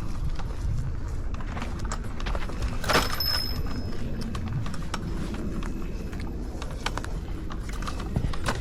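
Kingsong S22 electric unicycle ridden over a bumpy dirt trail: a steady low rumble of wind and ground noise with scattered knocks and rattles from the bumps, and a sharper clatter about three seconds in.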